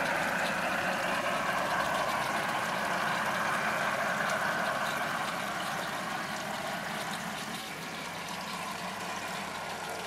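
G scale model BR 218 diesel locomotive running along garden railway track, a steady hum that slowly fades as the train pulls away.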